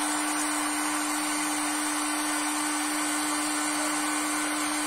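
Electric heat gun running steadily, its fan motor giving a constant hum under a rush of blown air, as it heats a heat-shrink seal band onto a spice-shaker cap.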